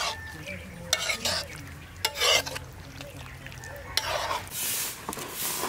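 A metal spoon scraping and stirring thick chicken curry around a metal wok, in a series of uneven scraping strokes.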